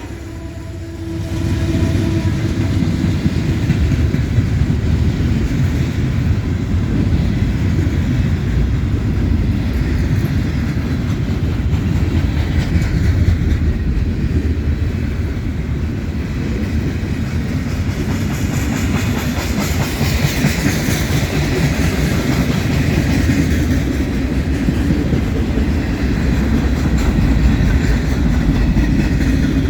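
Freight train rolling past: a steady, loud rumble of railcars with wheels clattering on the rails.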